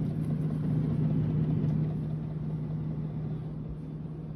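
Refrigerator-freezer running with its door open: a steady low mechanical hum on one held pitch over a faint rumble.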